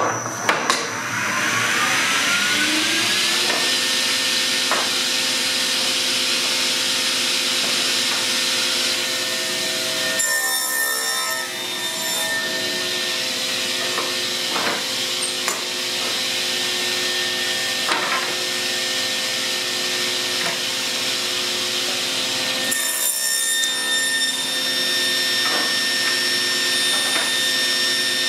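Sliding-table saw spinning up over the first few seconds, its whine rising in pitch, then running at steady speed while wooden door rails are pushed through and cut. Occasional short knocks of the wood against the table.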